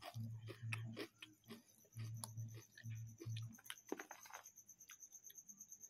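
Chewing crunchy fried snacks close to the microphone: soft crunches and mouth clicks. A faint, fast, even high ticking runs underneath from about two seconds in.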